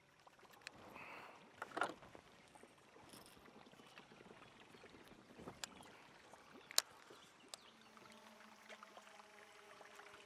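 Quiet handling of fishing tackle on a boat: a few sharp clicks and knocks, the loudest about two-thirds of the way through. A faint steady hum sets in near the end.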